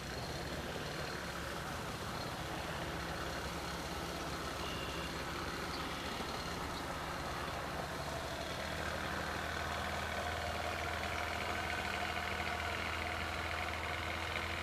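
An engine running steadily with a low, even hum. It grows a little louder about two-thirds of the way through.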